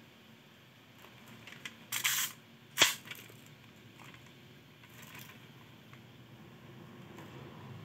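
Handling noises from a 1:1 scale replica AK-47 and its packaging: a short scraping rustle about two seconds in, then one sharp click, the loudest sound, with a few faint small clicks and rustles around them.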